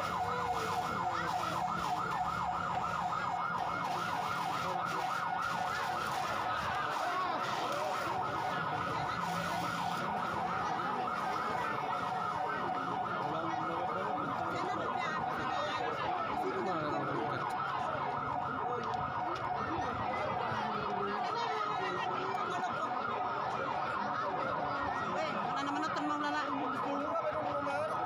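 Fire truck siren sounding continuously in a fast, even warble, with a crowd's voices beneath it.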